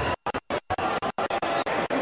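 Hall background of crowd noise and music, broken up by a rapid series of brief total dropouts in the recording, so that it stutters and chops. The cuts stop just before the end.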